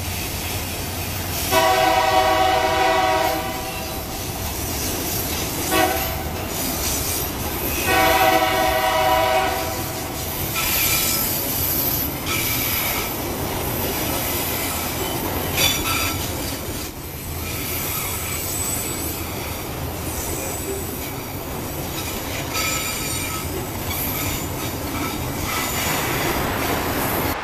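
Freight train of covered hopper cars passing: the locomotive's air horn sounds two long blasts with a short one between them in the first ten seconds. Wheel squeal comes and goes over the steady rumble and clatter of the cars.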